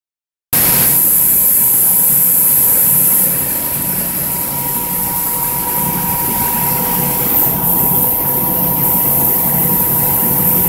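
Steady hum and hiss of shop machinery running, with a constant whine and a low pulsing drone, easing slightly after about three seconds.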